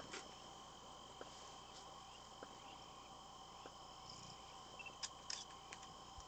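Faint, steady chirring of crickets, with a few soft clicks about five seconds in.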